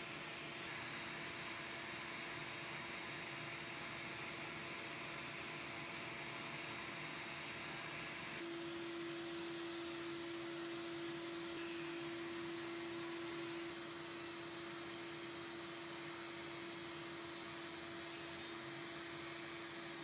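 Dremel 3000 rotary tool running with a sanding drum, a steady whine over the hiss of the drum rubbing against tupelo wood as it rough-shapes a carved bird's head and beak. About eight seconds in the sound changes abruptly: the whine steadier and stronger, the hiss fainter.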